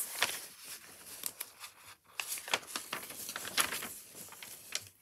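Close rustling and scraping handling noise with many sharp clicks, as fabric and hands brush against the recording phone's microphone.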